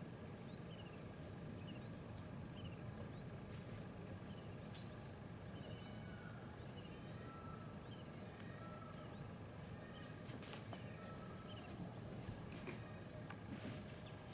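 Forest ambience: a steady high insect drone, with birds calling over it again and again in short downward whistles and chirps, over a low background rumble.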